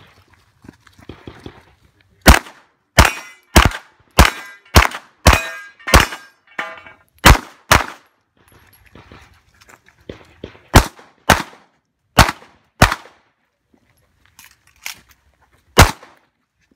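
Handgun shots fired by a competitor running a practical-shooting stage: a fast string of about ten shots roughly half a second apart, several of them followed by a brief metallic ringing. After a pause of about three seconds come more shots in quick pairs, the usual two hits per target.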